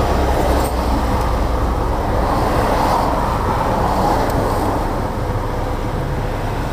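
Steady rumble of vehicle and road traffic noise.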